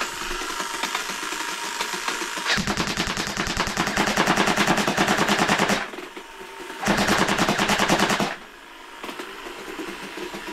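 A&K MK46 airsoft light machine gun firing full-auto on a 7.4 V battery at about nine rounds a second: a long burst of about three seconds starting a few seconds in, then a shorter burst of about a second and a half. A steady whirr from the box magazine's electric winder runs before, between and after the bursts.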